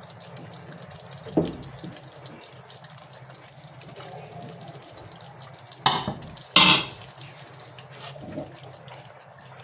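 Metal slotted spatula scraping and clanking against a large aluminium pot while spreading parboiled rice in a layer. There is a sharp clank about a second and a half in and two louder ones a little after the middle, over a steady low hum.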